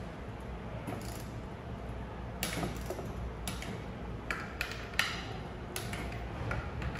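Torque wrench on the bolts of a plastic air-operated double-diaphragm pump's air chambers: irregular ratchet clicks, sparse at first and more frequent from about halfway, the loudest about five seconds in. Each bolt is being rechecked at torque so the air chamber won't leak.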